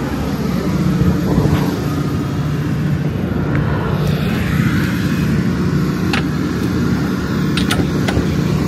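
Semi-truck diesel engine idling with a steady low rumble, with a few light metallic clicks about six and eight seconds in.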